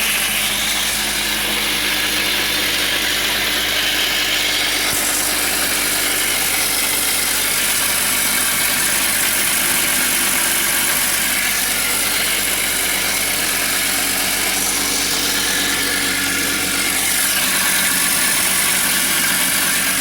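BMW E46 323i's M52 straight-six idling with a steady high-pitched screech from the engine bay.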